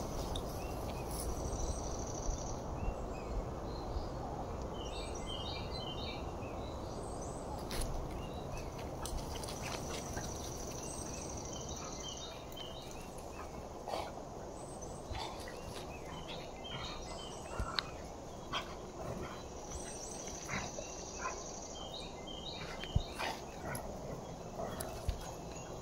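Two dogs playing on a lawn, with occasional dog sounds and short clicks over a steady outdoor background. Clusters of high chirps come and go.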